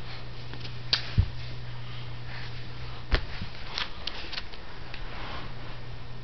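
Quiet room tone with a steady low hum, broken by a few sharp clicks about a second in and again around three seconds, and faint rustling near four seconds.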